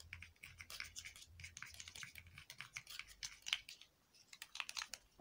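A metal spoon stirring aker fassi powder and milk in a small plastic cup, making quick, irregular scrapes and clicks against the cup, with a short pause about four seconds in.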